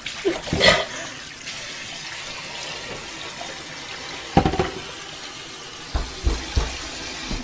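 Kitchen sink faucet running steadily with a person's mouth under the stream, broken by a few short, sharp noises, about half a second in, about four and a half seconds in, and a cluster near the end.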